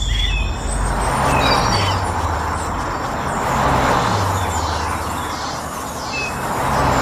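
Steady rumble of road traffic with a vehicle's low drone shifting in pitch now and then, and birds chirping in short falling notes above it several times.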